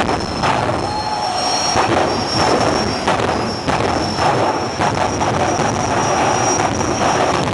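Jet-powered drag car's turbine engine running loudly: a continuous rushing noise with a steady high-pitched whine over it.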